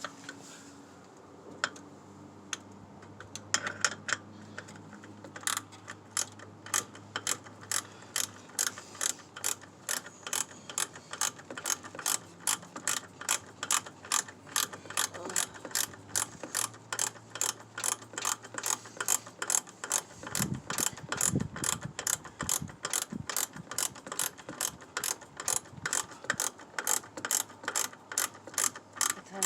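Hand socket ratchet with a 9/16 socket clicking as it tightens a brake master cylinder mounting nut. A few clicks about three seconds in, then steady, evenly spaced clicking, a few a second, from about five seconds in, with a few low dull knocks about two-thirds of the way through.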